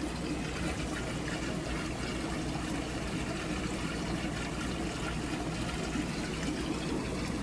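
A large aquarium's water circulation and bubbling aeration: a steady trickling rush of water over a low, even hum.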